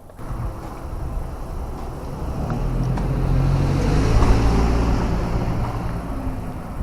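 A vehicle passing close by, its engine rumble and road noise swelling to loudest about four seconds in and then fading.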